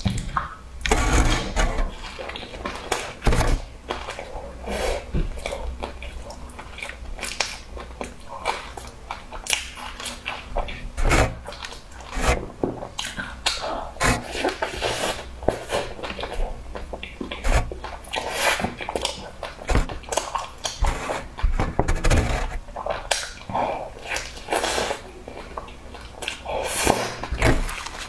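Close-miked eating: chewing and biting into a soft, cheese-filled bun topped with meat floss and seaweed, with many short clicks and snaps from the mouth and the tearing bun.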